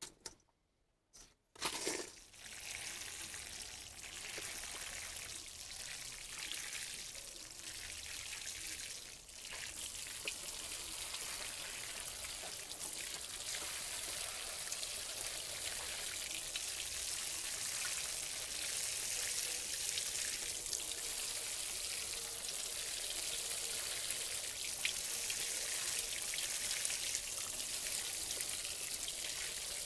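Water showering from a watering can's rose onto gravelly soil mix in metal mesh colanders, a steady spray of drops that starts about two seconds in after a couple of faint clicks.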